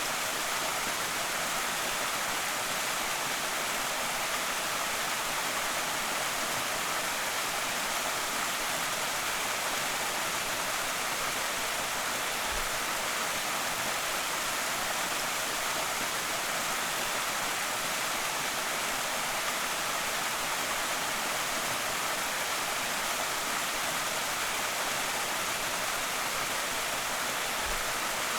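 Small creek waterfall: water falling and splashing in a steady, even hiss.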